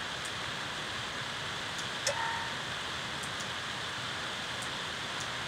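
Steady hiss from the recording microphone, with a few faint clicks and a brief short tone about two seconds in.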